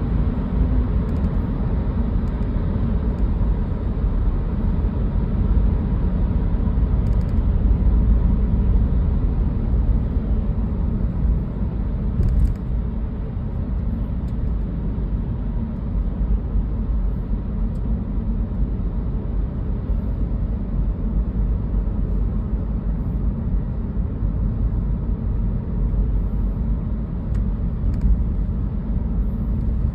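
Steady low rumble of a car's road and engine noise heard from inside the cabin while driving at speed on a wet road.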